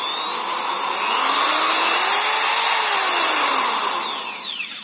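The corded AC motor of an iBell electric screwdriver whining as its variable-speed trigger is squeezed. It speeds up through the first second, runs steadily at high speed, then winds down near the end as the trigger is let go.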